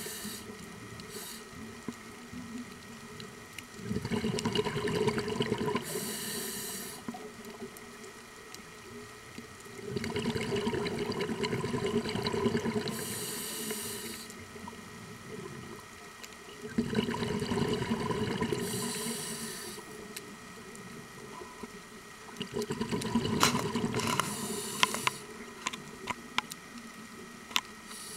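A scuba diver breathing through a regulator, heard underwater: four breaths about six seconds apart, each a rush of exhaled bubbles with a short high hiss.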